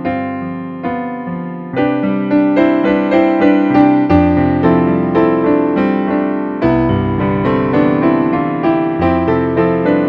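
Background keyboard music: a piano-like melody over chords, each note struck and fading. It grows fuller and louder about two seconds in, and deep bass notes join a little later.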